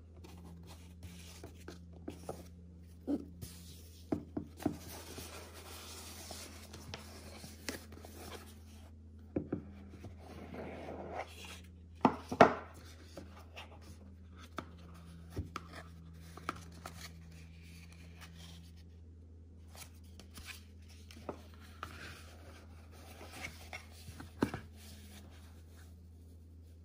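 Hands handling a ribbon-tied cardboard gift box: scattered soft taps, knocks and rustling of ribbon, card and fabric as the lid comes off and the contents are taken out. The loudest knocks come about halfway through, over a steady low hum.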